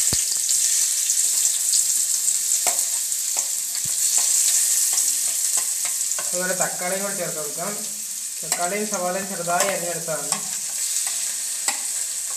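Chopped onions sizzling steadily in hot oil in an aluminium kadai, starting suddenly as they hit the pan, with a few sharp knocks of a spoon as more is scraped in. A person's voice is heard twice midway.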